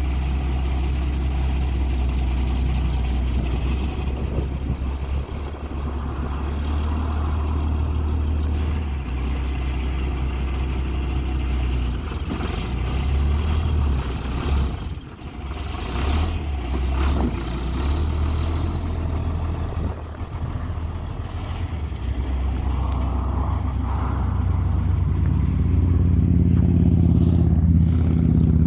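1990 International medium-duty flatbed truck's engine running steadily, then louder near the end as the truck pulls away.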